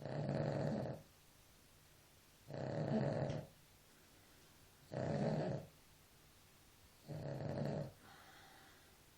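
Dog snoring in its sleep: four snores, each under a second long, about every two and a half seconds, the last one weaker.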